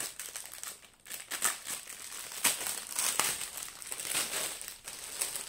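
Small plastic bags of diamond-painting drills crinkling as they are handled. The rustling comes in irregular bursts, with a couple of sharper crackles around the middle.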